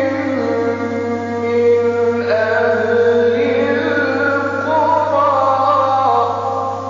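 A male Quran reciter's voice chanting in melodic tajweed style, holding long drawn-out notes whose pitch steps between tones, over a steady low hum. The voice tails off near the end.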